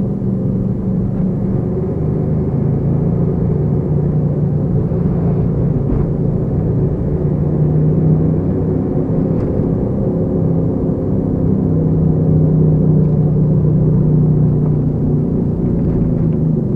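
Toyota Ractis compact wagon driving: steady engine and road rumble heard from inside the cabin, the engine note shifting slowly with speed.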